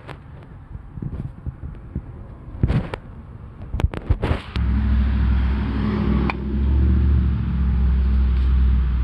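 A few knocks and clicks, then the Honda Civic's engine comes on abruptly about halfway through and runs steadily at idle.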